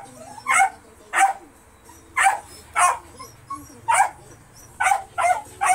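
Dog barking repeatedly, about eight short barks at uneven intervals, the last few coming close together.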